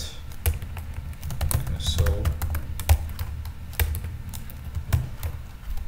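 Computer keyboard keys clicking in quick, irregular keystrokes as code is typed.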